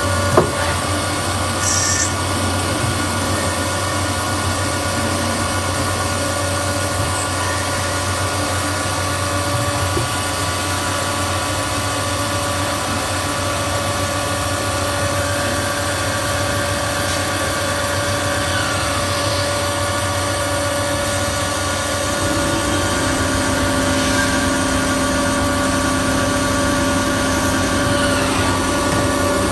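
Lathe running at turning work: a steady machine hum with several held tones. There is a single sharp knock just after the start, and about 22 seconds in a new lower tone joins in.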